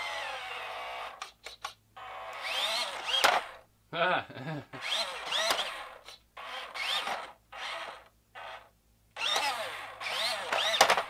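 1/14 WLtoys 14600 RC dump truck's electric drive motor and gearbox whining as it drives loaded with a rock. It starts with a steady whine, then comes in about eight short bursts, the pitch rising in each as the throttle is blipped.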